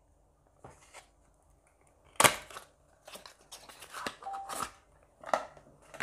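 Cardboard foundation box being handled and opened and the bottle taken out: a sharp click a little over two seconds in, then a string of short rustles and taps.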